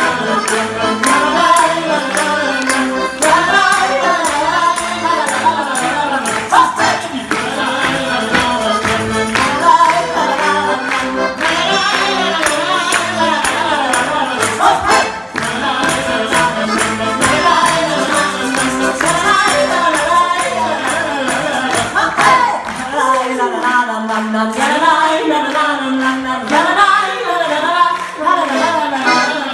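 A man and a woman singing a lively dance song live, accompanied by piano accordion, with a tambourine and a maraca shaken in rhythm.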